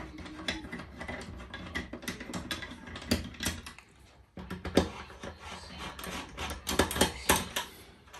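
Irregular metallic clicking and clinking of hand tools, with ratchet-like clicks, as screws are worked out of an ABS pump unit's control module. There is a brief pause about four seconds in.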